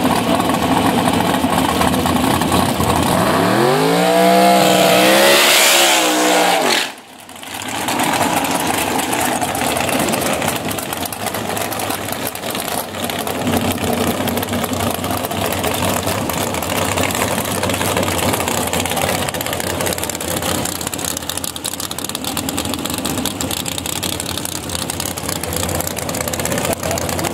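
Altered-class drag car's engine running loud at the starting line, then launching about three seconds in with its pitch climbing steeply under full throttle. The sound cuts off abruptly near seven seconds, then an engine drone runs on more steadily and a little quieter.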